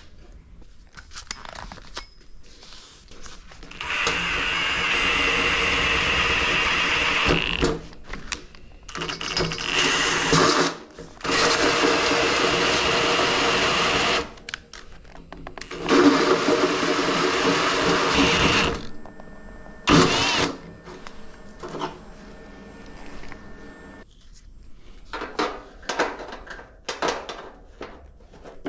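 Cordless drill with a hole saw cutting through the sheet-metal top of a battery cabinet, in several runs of a few seconds each with pauses between. Light scraping and clicking near the end.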